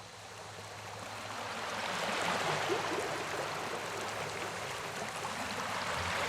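Rushing water of a cascading waterfall, a steady hiss-like rush that fades in over the first two seconds and then holds steady.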